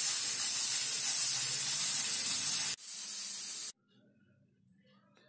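A loud, steady hiss that cuts off abruptly about three seconds in, followed by about a second of quieter hiss and then near silence.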